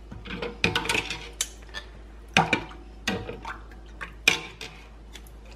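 Metal canning tools and a jar lid being handled by the stove, clinking and clattering against metal: about half a dozen sharp clinks over a few seconds.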